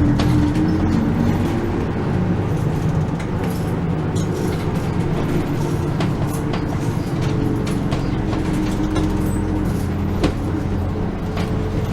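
Route bus heard from inside the cabin while driving: a steady engine drone with road noise. A short sharp click or knock comes about ten seconds in.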